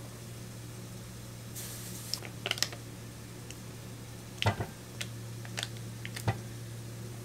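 Foil wrapper crinkling and a plastic spatula scraping and tapping as cream cheese is scooped into a ceramic bowl: a handful of sharp clicks and taps, the loudest about halfway through. A steady low hum runs underneath.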